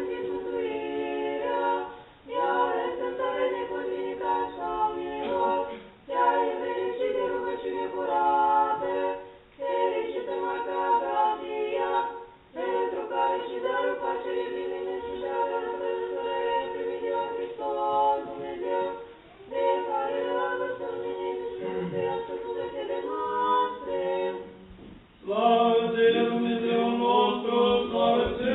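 Church choir singing a cappella in sustained phrases broken by short pauses for breath, swelling louder about 25 seconds in.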